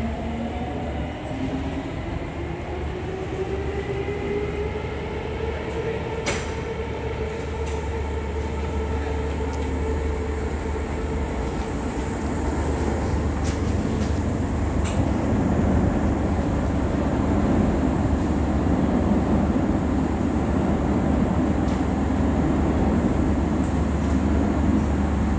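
SMRT C151-series metro train setting off, its traction motor whine rising in pitch over the first several seconds as it gathers speed. This gives way to steady wheel and motor running noise that grows louder about halfway through. A single sharp click comes about six seconds in.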